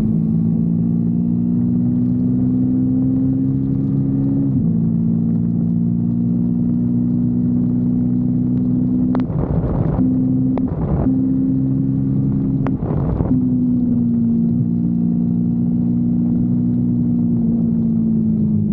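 Kawasaki Versys-X 250's parallel-twin engine running at nearly steady revs under way, with a small drop in pitch about four and a half seconds in and a slow easing of revs near the end. Short bursts of rushing noise break in around nine to eleven seconds and again around thirteen seconds in.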